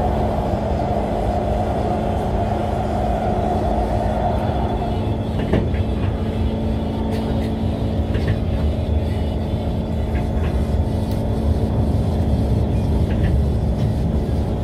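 Kawasaki C151 MRT train running on the East West Line, a steady rumble with a constant low hum, and a brief click about five and a half seconds in.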